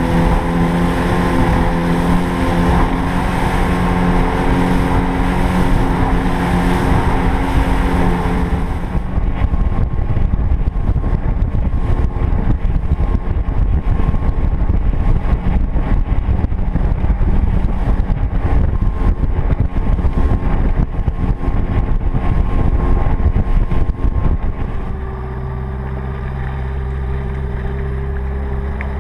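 Outboard motor driving a small open fishing boat at speed, with water rushing past the hull and wind on the microphone. About 25 s in, the engine is throttled back to a quieter, steady low running as the boat comes off the plane and slows.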